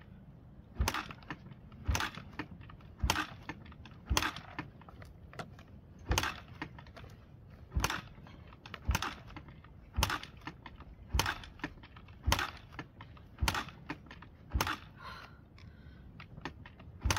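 Yamaha TT-R125 single-cylinder four-stroke dirt bike being kick-started over and over, about one kick a second, each stroke a short clack of the kick-starter turning the engine over. The engine does not catch: the choke keeps dropping, which she blames for the no-start.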